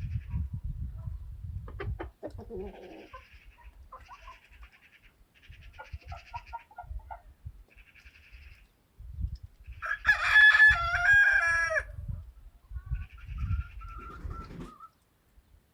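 Chickens clucking and calling in short bursts, then a rooster crows once, loud, about ten seconds in, the crow lasting about two seconds.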